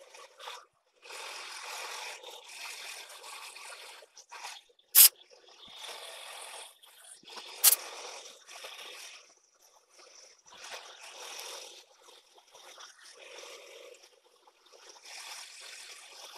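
A 3/8-inch two-flute end mill cutting a keyway into a tractor flywheel hub on a Bridgeport milling machine: a raspy hiss of cutting that comes and goes. Two sharp clicks stand out, about five seconds in and again nearly three seconds later.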